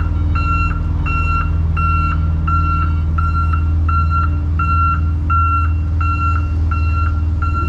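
Reversing alarm on a heavy road-works vehicle beeping steadily, about three beeps every two seconds, over the low steady drone of its engine running.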